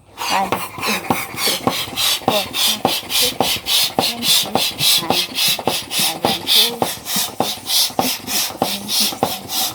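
Bestway Air Hammer manual balloon pump worked fast, a short hiss of air with every stroke, about five strokes a second, inflating a balloon.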